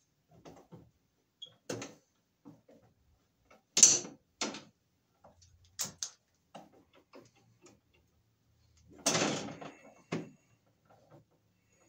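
Hand tools working on wiring inside a metal breaker panel: irregular sharp clicks, snips and knocks of pliers or wire strippers against wire and the panel box, with a longer scraping rattle about nine seconds in.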